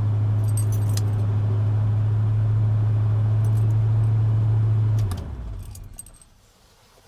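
1984 Chevy K10 pickup's engine idling steadily, then shut off about five seconds in and winding down to a stop, with the ignition keys jingling on their ring.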